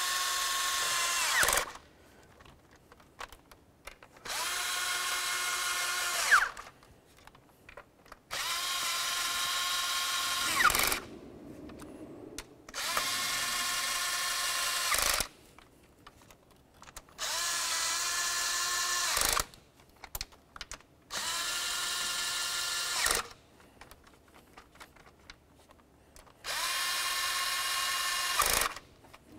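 Cordless electric ratchet running intake manifold bolts down one after another: seven runs of about two seconds each, a steady motor whine with short pauses between. Each run ends in a brief louder jolt as the bolt snugs up.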